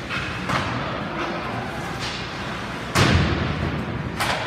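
Ice hockey play: skates and sticks scraping and clacking on the ice, then, about three seconds in, a loud deep thump of a hit against the rink boards that rings on briefly.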